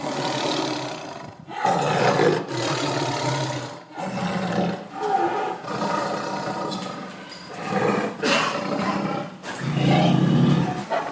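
Angry tiger roaring: about six loud, rough roars and snarls in close succession, each lasting one to two seconds with brief gaps between them.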